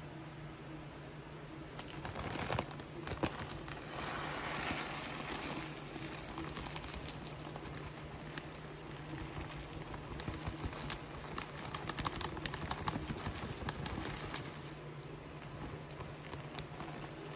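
White granules poured from a plastic zip bag into a stainless steel pot of butter chunks, pattering and ticking against the steel as the bag crinkles, starting about two seconds in and coming in uneven spells of small clicks.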